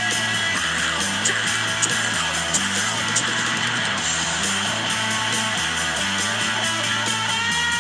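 Background music: a guitar-driven song with a steady stepping bass line.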